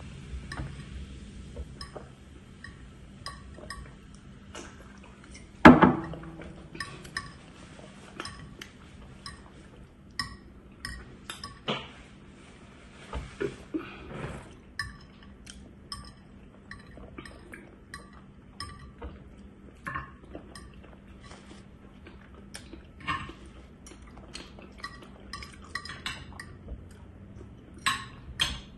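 Metal fork clinking and scraping against a plate, many short clicks throughout, with one much louder knock about six seconds in.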